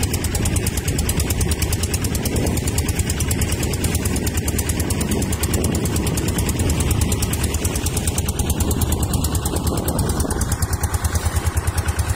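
Fishing boat's engine running steadily as the boat moves off across the water, with a rapid, even beat of firing pulses.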